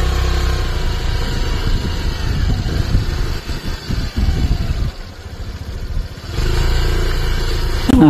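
Bajaj Pulsar 220F's single-cylinder engine running at low speed on a rough off-road track. It eases off for a couple of seconds past the middle, then pulls again near the end.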